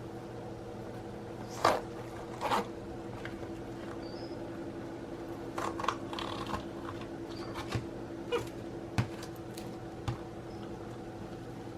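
A sticky squishy splat toy being handled and slapped. Two sharp slaps come in the first few seconds, then scattered smaller taps and rustles, over a steady electrical hum.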